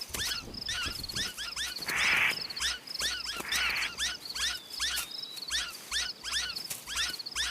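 Prairie dogs giving rapid alarm chirps, about three or four a second: the fast calling that signals a running coyote. A steady insect trill runs behind them, and two brief rushes of noise come about two and three and a half seconds in.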